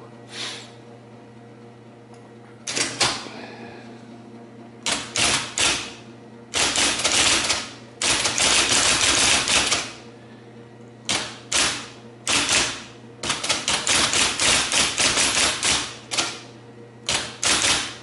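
IBM Selectric II golf-ball electric typewriter typing in quick bursts of rapid keystrokes, each a sharp clack of the typeball striking the paper, with short pauses between bursts and the machine's motor humming steadily underneath. The typewriter runs smoothly, working properly after its repairs.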